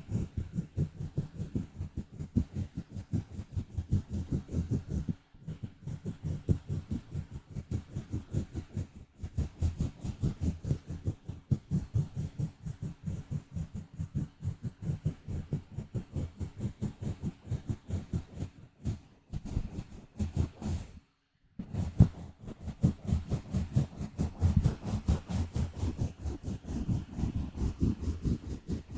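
Fingers scratching directly on a microphone for ASMR, in rapid, rhythmic strokes with a deep, rumbly body. The scratching stops briefly a few times, most clearly about 21 seconds in.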